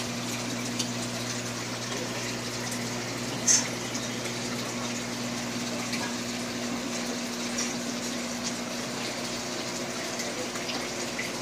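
Aquarium air bubbles and circulating water hissing steadily, over a steady low electric hum from the tank's pump. A single short sharp click about three and a half seconds in.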